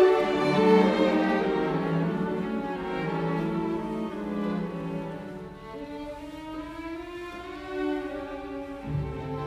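Background music: a slow melody on bowed strings, with long held notes.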